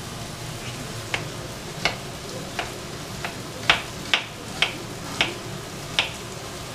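A kitchen knife slicing an onion on a cutting board: about nine sharp, unevenly spaced knocks of the blade on the board. Under them runs the steady sizzle of food frying in a pan.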